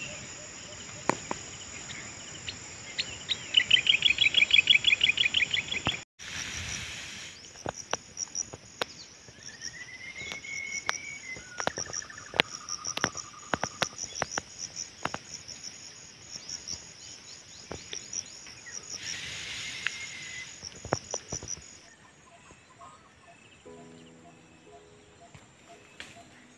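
Steady high-pitched insect drone with birds calling over it: a fast trill about four seconds in and whistled gliding notes around ten to fourteen seconds, with scattered sharp clicks throughout. The drone breaks off briefly about six seconds in and stops about twenty-two seconds in.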